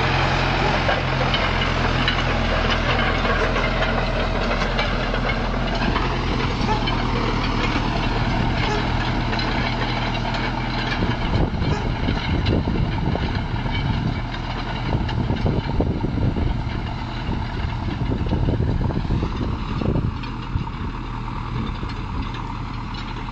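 Valtra tractor's diesel engine running steadily under load as it pulls a cultivator across a field. The engine fades as the tractor moves away, with irregular low rumbling noise in the second half.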